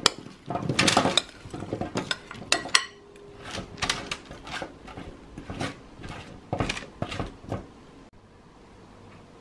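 Diced zucchini being spread over parchment paper with a metal spoon: a series of light clatters and scrapes of spoon and cubes, which stops about eight seconds in.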